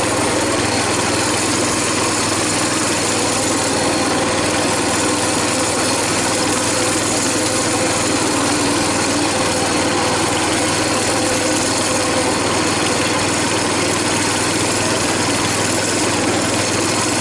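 Coleman BT200X mini bike's 196cc single-cylinder four-stroke engine running steadily at light throttle while the bike is ridden along at an easy pace.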